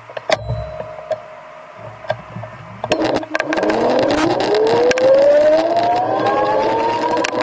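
Dualtron Eagle Pro electric scooter's motor whining, rising steadily in pitch as the scooter accelerates from about three seconds in. Before that it is quieter, with a few clicks and knocks.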